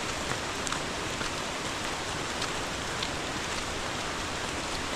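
Steady hiss of falling or running water with faint scattered drip-like ticks.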